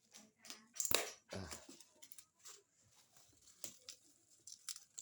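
Handling noises from unpacking a box of toy parts: a scatter of clicks, light knocks and short rustles of packaging, with the loudest knocks about a second in.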